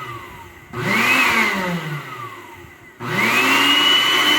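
Arno Clic 600 W blender motor, run without its jar, spinning up and coasting down with a falling whine, pulsed once more about a second in, then started again near the end and held at a steady high whine. It runs because the safety interlock switch in the base is being pressed down by hand, which shows the motor itself is sound.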